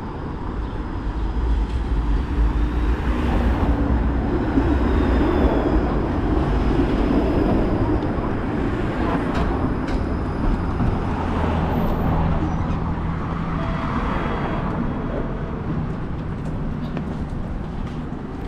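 A TTC streetcar running along its track: a steady low rumble with a few faint humming tones, growing louder over the first few seconds and then holding.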